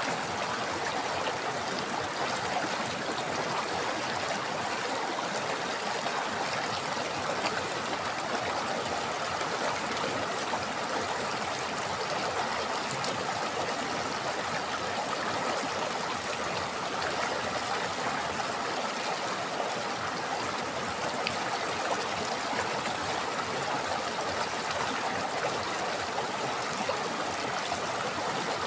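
River water flowing steadily, an even running-water sound with no breaks or changes.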